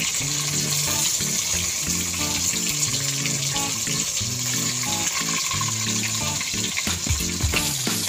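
Whole tilapia frying in hot oil in a pan: a steady sizzle, with background music playing over it.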